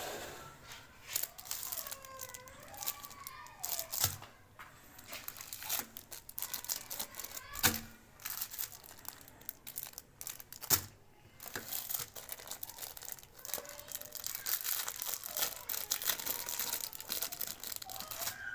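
Crinkling and crunching with dense clicks and a few sharp snaps, about 4, 8 and 11 seconds in, with faint squeaks at times.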